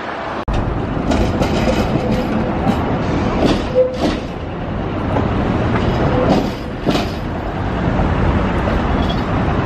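A Tatra KT4 articulated electric tram passing close by. Its wheels clack several times over rail joints and crossings over a steady rolling rumble, with a thin steady whine from the running gear.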